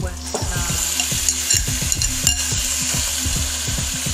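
Raw mutton pieces sizzling as they go into hot masala paste and mustard oil in a wok, the hiss picking up shortly after the start. Short knocks and scrapes of the meat and the spatula against the pan run through it.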